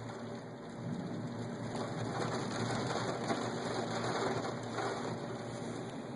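Thunderstorm rain falling steadily, swelling louder about a second in and easing off again near the end.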